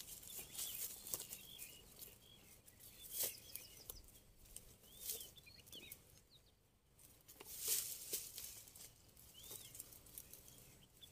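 Faint rustling of tall grass and brush as a person pushes through bank vegetation, in a few short bursts, with small high bird chirps here and there.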